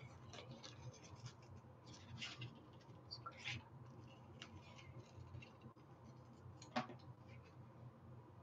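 Faint, scattered scratchy snips and rustles of scissors cutting fabric along a paper pattern, with one sharper click about seven seconds in.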